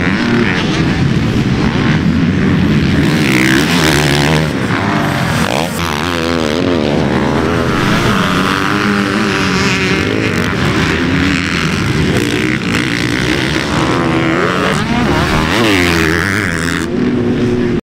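Motocross bike engines revving up and falling back repeatedly as they ride the practice track, cutting off abruptly near the end.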